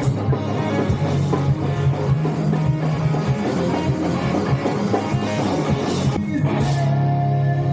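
Live rock band playing with drum kit and electric guitars. About six seconds in the drumming stops, a cymbal crashes and a held guitar chord rings on.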